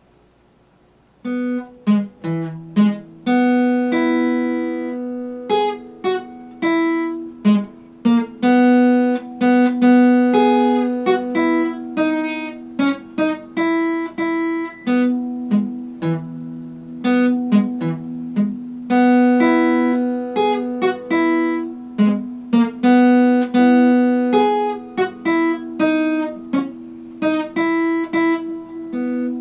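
Epiphone acoustic guitar played solo, with single picked notes and chords ringing out one after another. The playing starts about a second in.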